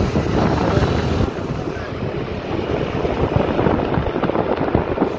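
Heavy wind buffeting on the microphone of a camera filming from a moving scooter, with road and traffic noise mixed in. The wind swamps the recording.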